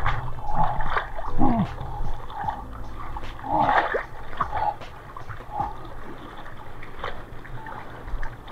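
Seawater splashing, sloshing and gurgling close against a waterproof action camera as a surfer paddles a surfboard through small waves, with uneven splashes from the arm strokes.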